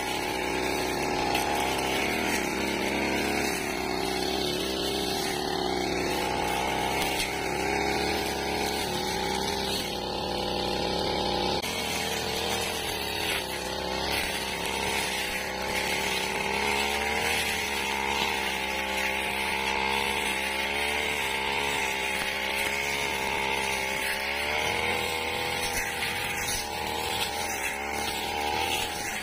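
Backpack brush cutter engine running at cutting speed as the blade swings through dry grass, its pitch wavering up and down, more so in the second half.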